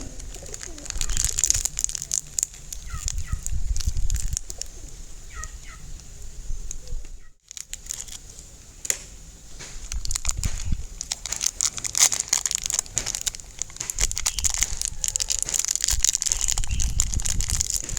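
Close handling noise from slime-making materials: dense sticky crackling and crinkling with many small clicks, and a few short squeaks. It breaks off abruptly about seven seconds in, then resumes.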